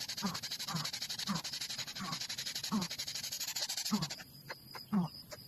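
An animal calling over and over, short calls that slide down in pitch, one every half second to a second, over a steady high-pitched buzz that stops abruptly about four seconds in.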